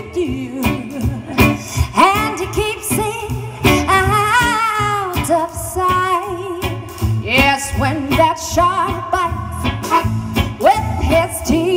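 Live swing band with a female lead singer: her voice over a small band of saxophone, trumpet, electric guitar, bass and drums.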